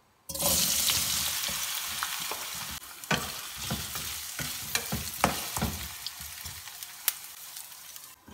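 Diced raw potatoes dropped into hot oil in a nonstick frying pan, setting off a loud sizzle that starts suddenly and slowly dies down. From about three seconds in, a spatula knocks and scrapes against the pan as the potatoes are stirred, and a glass lid goes on near the end.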